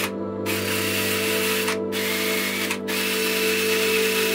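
Power-driven wire wheel brush scrubbing rust off a small steel part held in a vise: a harsh, steady hiss of wire bristles on metal. It breaks off three times for a moment, near the start, just before two seconds in, and just before three seconds in, as the brush is lifted.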